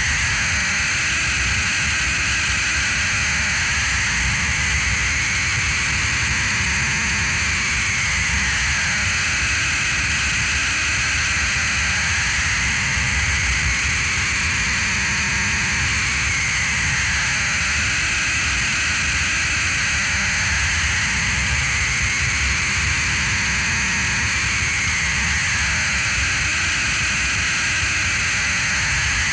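Experimental noise-drone score: a loud, unbroken wall of hiss and rumble with steady high tones. A brighter band in the middle slowly dips and comes back about every eight to nine seconds.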